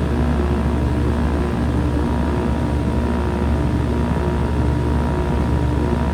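2016 Lasko Power Plus heat pump running in cool mode: a steady mechanical hum with a low drone and even tones above it, holding level throughout.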